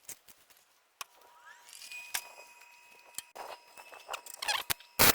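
Scattered light metal clicks and handling, then a steady high whine comes on about a second in and a second tone rises and holds. Near the end a short, loud crackling burst of a welding arc striking for a tack weld.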